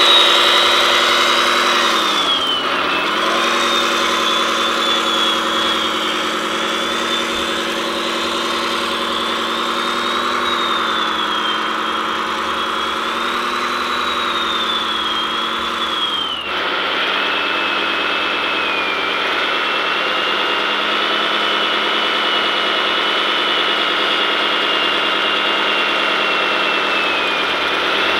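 Simulated truck diesel engine sound from an RC model truck's onboard sound module, played through a small speaker with no deep bass, running steadily with revs dipping and rising. A high whine wavers up and down with it. The tone changes abruptly about halfway through.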